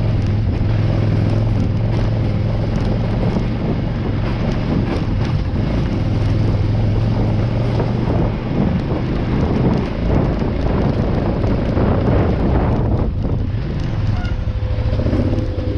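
Off-road motorcycle engine running steadily at trail speed, with wind buffeting the microphone and irregular clatter from the bike over the rough dirt trail.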